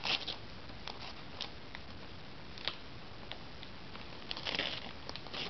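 A dog tearing and chewing at gift-wrapping paper: scattered crinkles and rustles of paper, with louder bursts at the start and about four and a half seconds in.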